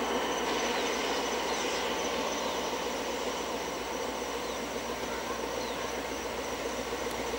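Diesel-hauled passenger train approaching, its locomotive engine running and the carriages rolling steadily along the track.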